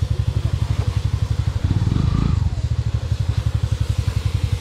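Motorcycle engine running with a fast, even thumping beat. It gets briefly louder about two seconds in.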